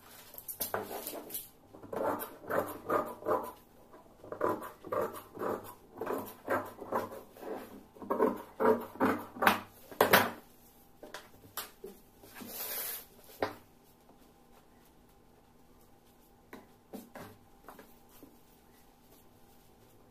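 Tailor's scissors cutting through dress fabric folded double: a run of sharp snips, about two or three a second, for roughly ten seconds. Then a short rustle of cloth being moved, and a few faint handling ticks.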